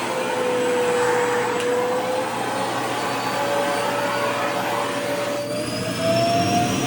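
Vacuum cleaner running with a steady rush of air and a motor whine. The whine dips slightly, then climbs gradually in pitch, and the sound gets louder about six seconds in.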